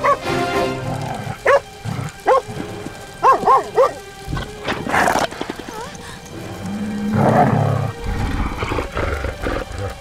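A dog barking over background music: two single barks, then three in quick succession. A brief rushing noise follows about five seconds in.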